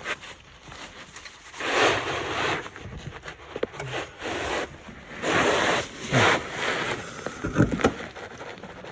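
Heavy, effortful breaths and a couple of short grunts from a man straining against a ratchet and socket on a stuck oil pressure switch. They come in about four bursts of under a second each, the last two with a falling voiced grunt.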